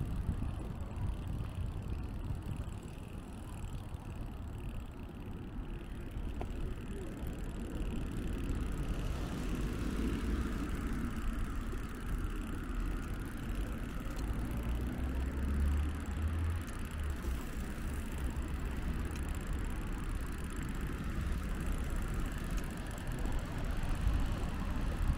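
Road traffic: cars passing, over a steady low rumble, with one vehicle swelling louder and fading about ten seconds in.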